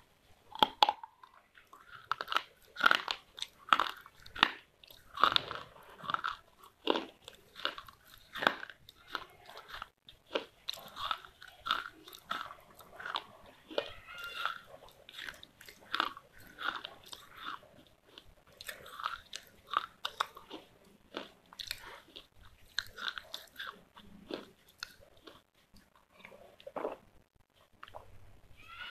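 Close-up crunching and chewing of hard, dry clay pieces in the mouth, one or two sharp crunches a second, loudest in the first several seconds and softer as the clay is ground down.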